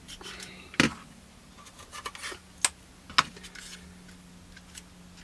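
Masking tape being handled and pressed onto a 1/48 plastic model kit fuselage: soft rustling of tape and plastic in the hands, with a few sharp clicks.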